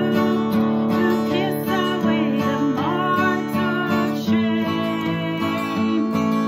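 Acoustic guitar strummed in a steady rhythm, with a woman singing along.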